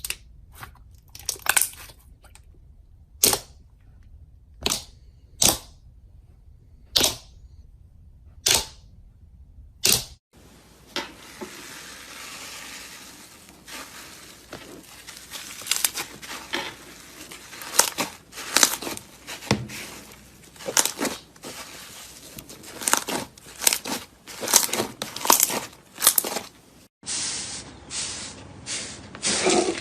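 Slime being handled and pressed, giving sharp pops about every second and a half. It changes abruptly about ten seconds in to dense crackling and crunching.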